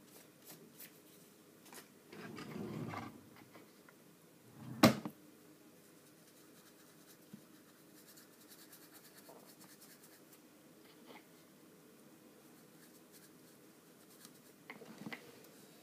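Faint scratching of a paintbrush on paper, with a brief low rustle and then a single sharp knock about five seconds in, the loudest sound here.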